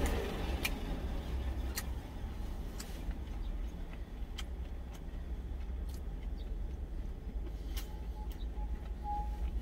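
Steady low rumble of a truck's engine idling, heard from inside the cab, with a few light clicks scattered through it.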